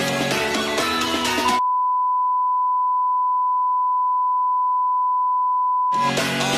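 Calm hip-hop background music that cuts out about a second and a half in, replaced by a single steady electronic beep at one pitch, the kind of bleep edited in to blank out audio. The beep lasts about four and a half seconds, then the music returns near the end.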